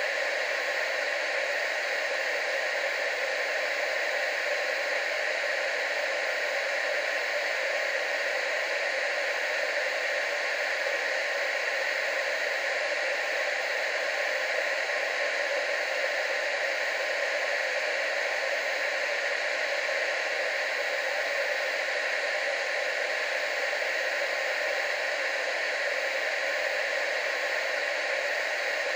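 Steady static hiss, like an untuned radio or television, with no rise, fall or break; nothing below the upper bass.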